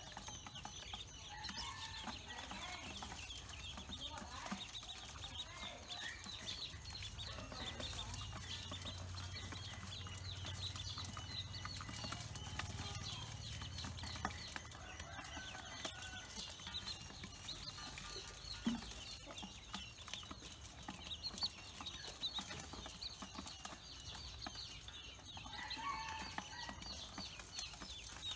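A group of Pekin ducklings peeping without pause, a dense chorus of short, high cheeps.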